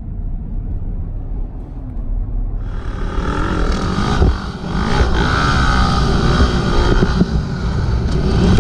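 A motor vehicle's engine running under a heavy low rumble, growing fuller and louder about two and a half seconds in, its pitch rising and falling.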